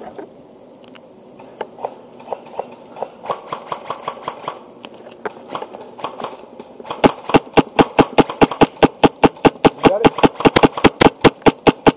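Airsoft rifle with a Wolverine Inferno Gen 2 HPA engine firing a rapid string of sharp shots, about six a second, starting about seven seconds in. Fainter scattered clicks come before it.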